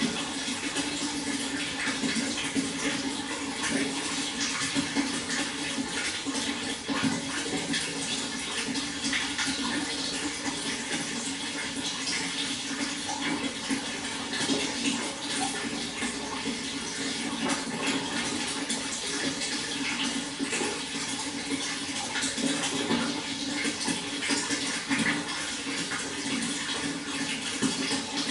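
Water flowing steadily, with a continuous dense splashing and trickling.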